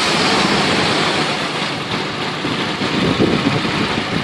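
A motor running steadily with a dense mechanical noise, level throughout.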